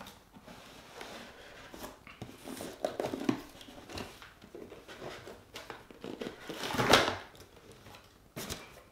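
Cardboard shoebox being opened and handled by hand: soft scraping and rustling of the box and lid, with a louder rustling swish about seven seconds in as the lid comes open and paper inside is handled.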